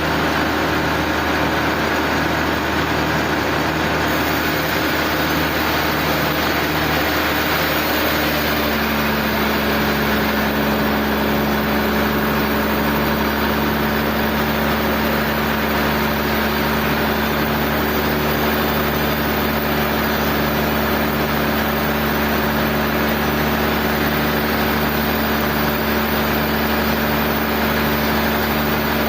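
Sawmill machinery running with a steady engine-like hum; a new steady tone joins about eight seconds in.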